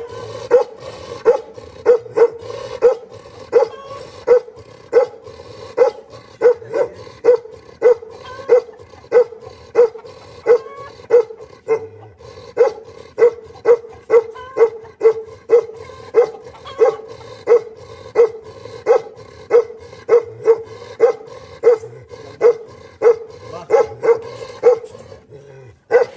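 Black Bakarwal dog, a mastiff-type livestock guardian breed, barking steadily and rhythmically, about two barks a second without a break.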